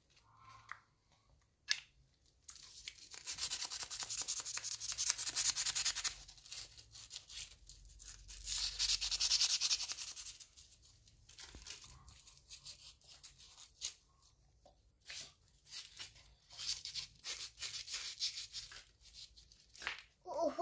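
Sandpaper scrubbing rust off the parts of an electric fan motor, in two long bouts of rapid back-and-forth strokes and then shorter scrapes near the end, with a few light clicks.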